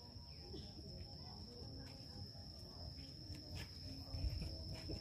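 Steady, high-pitched insect drone, a single unbroken tone from crickets or similar insects in the lakeside vegetation. A few faint light clicks and distant murmuring voices sit underneath.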